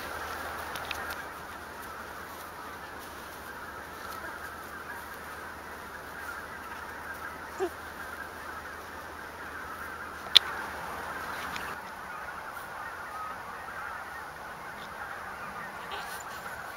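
A steady, distant chatter of bird calls, with a short rising squeak about seven and a half seconds in and a sharp click about ten seconds in.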